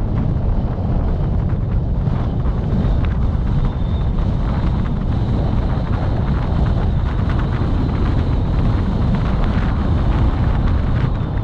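Wind buffeting the microphone of a moving vehicle, a steady low rumble with road and vehicle noise underneath.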